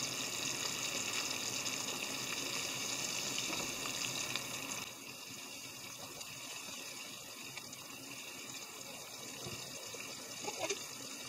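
Soy-sauce and dashi broth simmering in a frying pan of hijiki and vegetables, a steady bubbling hiss that drops in level about five seconds in.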